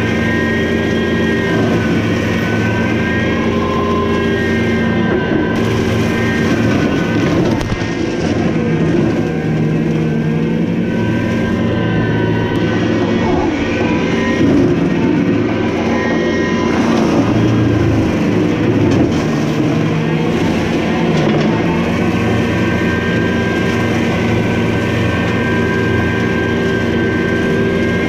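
Skid steer's engine and a Baumalight MS560 fixed-tooth brush mulcher running while mulching brush: a loud, steady mechanical drone whose pitch sags and recovers several times through the middle as the cutting drum takes on load.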